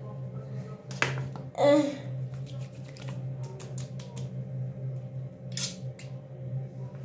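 Hands patting and rubbing a wet face, a scattered run of soft clicks and light slaps, with a brief louder squeaky sound about two seconds in.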